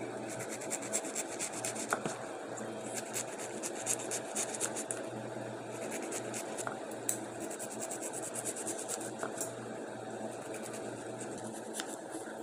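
Kitchen knife slicing through a raw cabbage head on a wooden chopping board: quick runs of crisp, scratchy cuts with short pauses between them.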